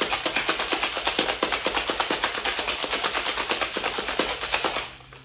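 Cocktail ingredients being shaken hard in a Boston shaker, ice rattling against the tin in a fast, even rhythm of about six knocks a second that stops abruptly shortly before the end.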